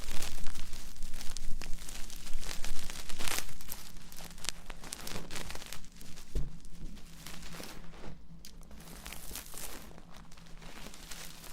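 Close-miked ASMR ear-cleaning sounds: dense scratching and rustling rubbed right against the microphone, louder for the first few seconds and softer after.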